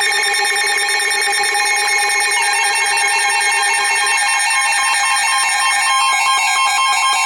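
Several weather alert radios sounding their warning alarms at once: steady high tones layered with the repeating beeps of the different units. A lower tone stops about four seconds in. The alarms signal that a flash flood warning has just been received.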